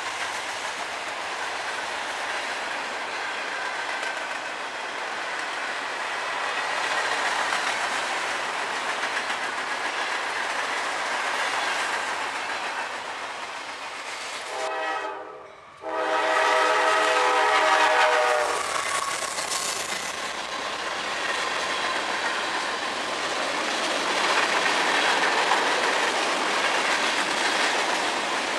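Freight train cars rolling steadily past on the rails. About halfway through, a diesel locomotive's air horn sounds one chord of several notes for about two and a half seconds, then more freight cars roll past.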